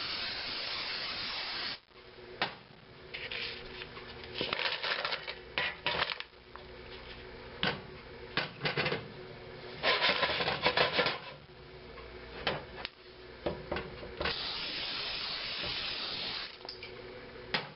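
Cooking oil sprayed from a hand-held sprayer in hissing bursts: about two seconds at the start, a shorter burst around ten seconds in, and a longer one of about two seconds near the end. In between, diced raw potatoes clatter and shuffle as they are tipped from a plastic colander into a parchment-lined air fryer basket.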